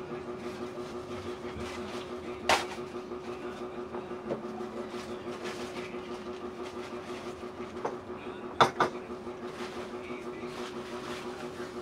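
A steady household hum, with a few sharp knocks of things being handled and set down on a table: one about a quarter of the way in, and a quick double knock about three-quarters through.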